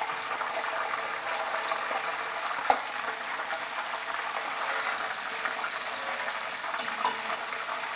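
Hot oil sizzling steadily in a cast-iron pot during the deep-frying of chicken, with a single short knock a little under three seconds in.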